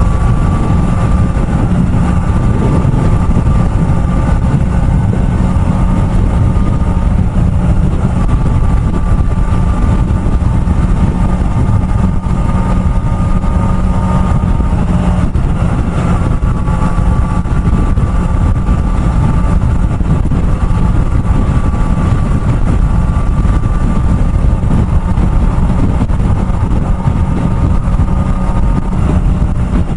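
Kawasaki ZX-4RR's inline-four engine running at a steady cruising speed, with a constant engine note over heavy, even wind noise.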